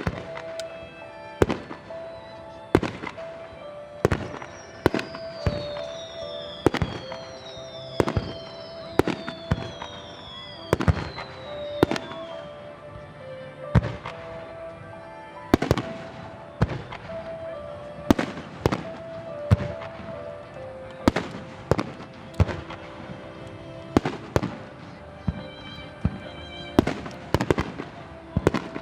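Aerial firework shells bursting over and over, a sharp bang every second or two, with several falling whistles overlapping between about four and twelve seconds in. Music plays steadily underneath.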